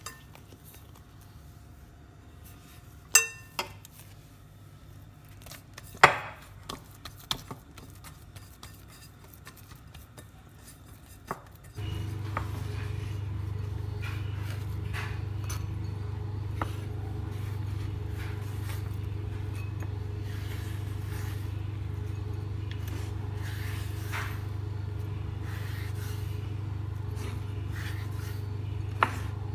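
A glass mixing bowl clinks sharply twice against a hard counter, ringing briefly, followed by a few lighter knocks. About twelve seconds in, a steady low hum starts and carries on under occasional light taps.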